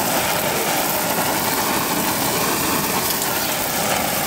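Handheld butane torch on a gas canister burning with a steady hiss as its flame is held on a meat skewer.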